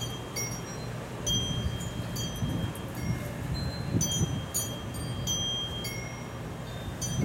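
Wind chimes ringing irregularly, struck every second or so by gusts of wind, with wind rumbling on the microphone underneath.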